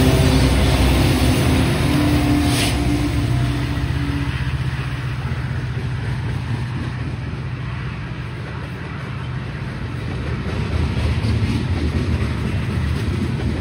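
Freight train passing close by: the diesel locomotive's engine hum fades over the first few seconds as the last unit goes by, leaving the steady rumble of tank cars rolling on the rails, which swells again near the end with clicking of wheels over the rail joints.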